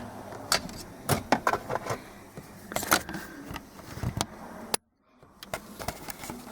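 Screwdriver working a small plastic wiring connector off a car's wiper switch: a scatter of irregular plastic clicks, taps and scrapes.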